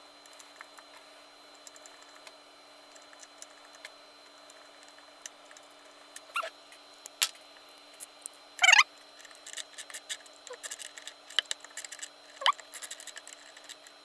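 Hex key turning and tightening the screws that hold an all-in-one computer's metal stand: light metal clicks and ticks, with a few short squeaks, the loudest about two-thirds of the way through.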